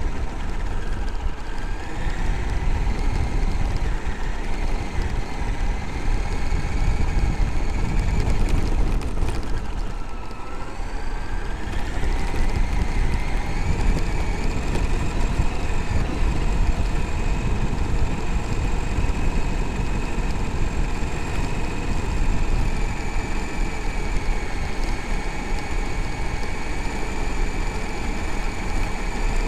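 Traxxas X-Maxx RC monster truck's electric motor and drivetrain whining as it drives, over a rumble of gravel under the tyres. The whine drops about nine seconds in, then climbs a few seconds later and holds.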